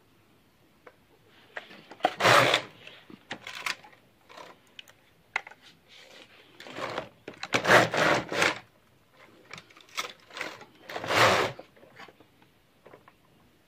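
Passap double-bed knitting machine knitting hairy yarn: the carriage is slid along the needle beds in three main passes, about two, seven to eight, and eleven seconds in, with smaller clicks and knocks between.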